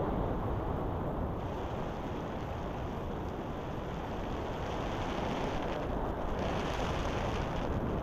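Wind from the flight rushing and buffeting over the camera's microphone, a steady noisy roar that gains a brighter hiss about a second and a half in.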